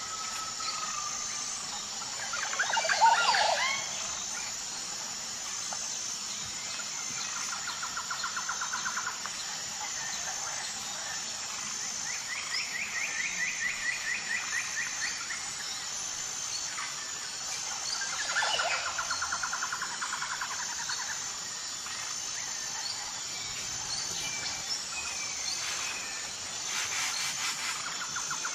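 Natural ambience of several birds calling, with repeated trilled phrases and a louder burst of calls about three seconds in, over a steady, high, pulsing insect chorus.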